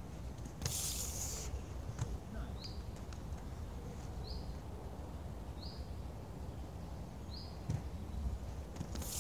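Inline skate wheels sliding sideways across concrete in powerslide stops: a loud hissing scrape about a second long, just under a second in and again near the end, over a low rolling rumble. A bird gives a short high chirp every second and a half or so in the background.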